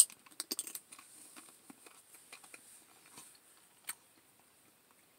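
Drinking from a cup of iced drink: a sharp clink as the cup reaches the mouth, then small clicks and faint sips and swallows. Another clink comes about four seconds in.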